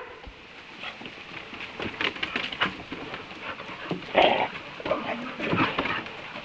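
Several dogs play-fighting on a wooden deck: short whines and vocal noises with panting, scuffling and claws clicking on the boards, and a louder cry about four seconds in.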